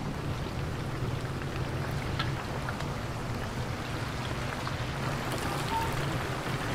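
Battered chicken pieces deep-frying in a large vat of hot oil: a steady sizzle.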